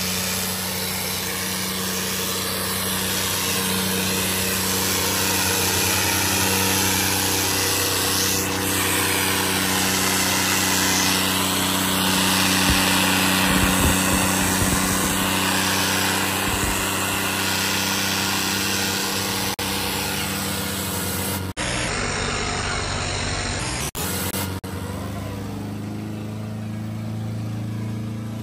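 Tractor diesel engines running hard under load in a tochan, a tractor tug-of-war, with a steady low engine note and a broad rush of noise over it. The sound changes briefly about three-quarters of the way through.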